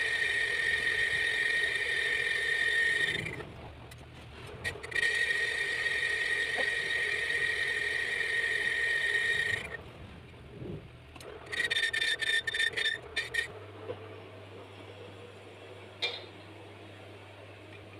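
Worn motorcycle rear brake drum being machined on a metal lathe: metal rubbing on the spinning drum gives a high-pitched squeal. It breaks off about three seconds in, comes back for several seconds, then returns in short stuttering bursts before stopping, leaving only a low hum and a couple of faint clicks.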